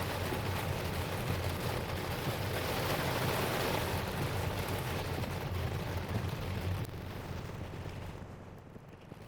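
Heavy rain mixed with hail beating on the car's roof and windshield, heard from inside the cabin. It eases off sharply about eight seconds in.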